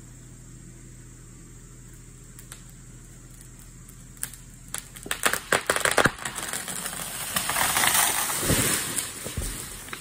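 A dead tree falling. The trunk cracks and snaps in a rapid run of sharp pops beginning about four seconds in, then the crown rushes down through the air and neighbouring branches, ending in heavy thuds as it hits the ground near the end.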